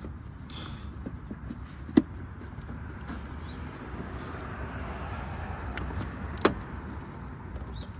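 Two sharp clicks, the first the loudest, about two seconds in and again about four and a half seconds later, from hands fitting the headlight bulb's wiring and rubber grommet into place, over a steady low rumble.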